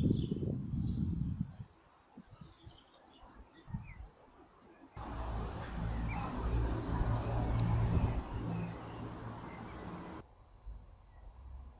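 Woodland songbirds chirping and singing in short, quick whistled phrases, some falling in pitch. A low rumble sits under them briefly at the start and again for several seconds in the middle, cutting off abruptly.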